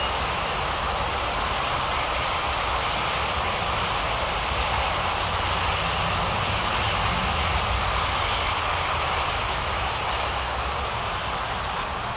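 Long G-scale model train of container-loaded well cars rolling steadily past on garden railroad track, a continuous rolling rumble of many wheels on the rails.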